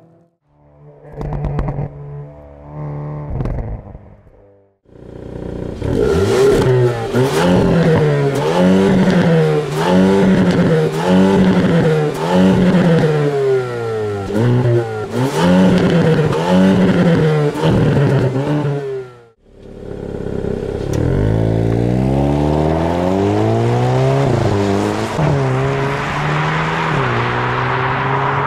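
2022 Hyundai Kona N's 2.0-litre turbocharged four-cylinder through its exhaust: a few short bursts, then from about five seconds in repeated revving in place, rising and falling about once a second, with sharp pops. After a short break near the end the car pulls away hard, the engine note climbing and dropping through several upshifts as it moves off.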